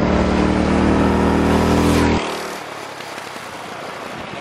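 Go-kart engine running loudly close by, then dropping off sharply about two seconds in to a quieter, fainter running sound.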